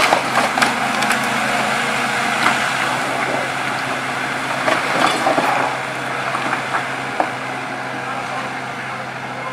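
Liebherr wheeled excavator's engine running steadily while its grab crushes and drags a pile of splintered wood and roofing debris, with repeated cracking and clattering. The cracks are busiest in the first half and again around five seconds in, then ease off.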